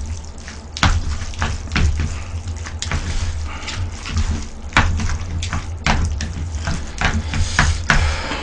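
Jjajangmyeon noodles being mixed into their black bean sauce with chopsticks: wet squelching and slapping of sauce-coated noodles, with irregular sharp clicks, about one a second, over a steady low hum.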